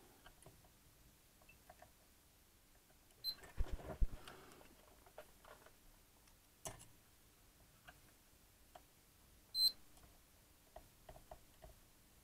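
Handheld multimeter giving two short high beeps, a faint one about three seconds in and a louder one near ten seconds, as its probes touch transistor legs while the transistors are being buzzed out: the beep marks a conducting junction. Small clicks of the probe tips on the board, with a burst of handling knocks around four seconds.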